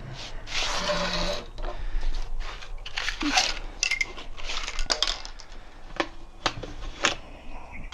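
Handling noise from a motorcycle wheel and tire being moved about on a small wooden stand: a long scrape and rustle, then a run of sharp knocks and light metallic clicks.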